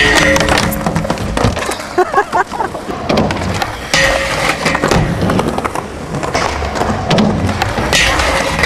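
Skateboard rolling on concrete, with the clack of the board popping and a scraping grind on a metal rail. The same pattern comes about every four seconds, three times.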